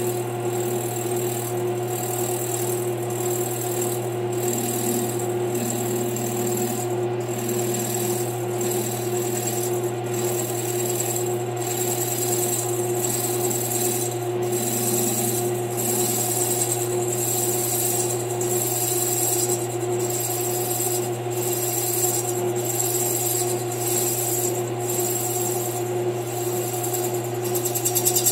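Metal lathe running steadily with a hum while the tool takes a light facing cut across the base of a Stihl 031 chainsaw cylinder, with a faint regular pulse a little faster than once a second. This is the first cut, 7 thousandths deep, decking the cylinder to set the squish clearance.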